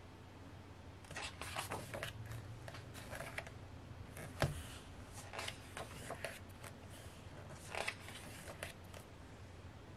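Pages of a thick photo book turned by hand: several spells of paper rustling and page flaps, with a sharp tap about four and a half seconds in.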